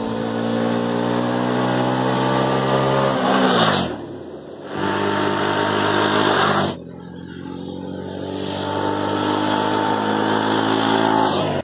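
Bajaj Pulsar NS200's single-cylinder engine running as the motorcycle rides along. Its pitch falls a little over three seconds in, and the sound breaks off abruptly twice. It then rises steadily through the second half.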